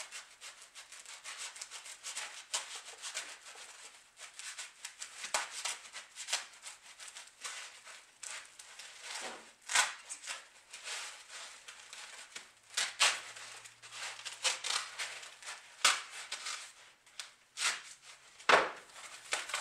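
Knife sawing through a slab of foam packing: an irregular run of rasping strokes, with a few louder scrapes in the second half.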